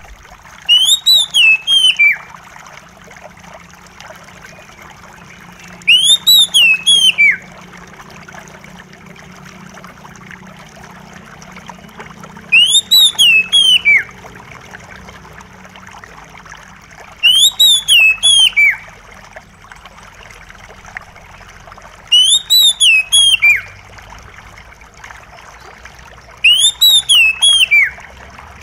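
Oriental magpie-robin song: a short phrase of quick rising-and-falling notes, repeated six times about every five seconds, over a steady trickle of running water.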